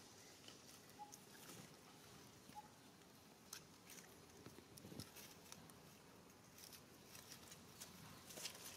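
Near silence: faint rustling and scattered soft clicks from monkeys moving in ground plants and leaf litter, with two very short faint squeaks about one and two and a half seconds in.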